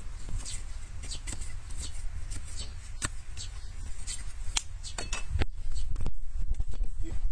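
Long-handled hoof cutter paring overgrown hoof horn against a wooden stool: a run of short, crisp cutting and scraping strokes, a few of them sharper knocks, over a steady low rumble.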